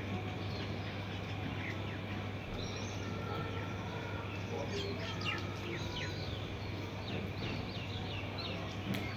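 Small birds chirping, with a flurry of short, quick downward-sweeping chirps in the second half, over a steady background hiss and low hum.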